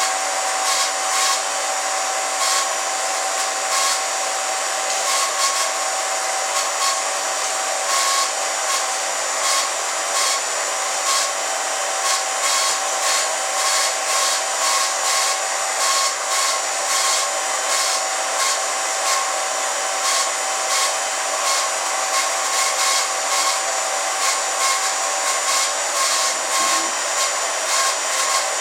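Home-movie film projector running, a steady whir with a constant hum and light clicking throughout.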